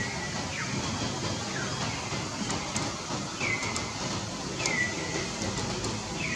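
Baby long-tailed macaque giving short, high, thin calls, about six in a few seconds, each sliding down in pitch and some trailing off on a level note, over a steady hiss.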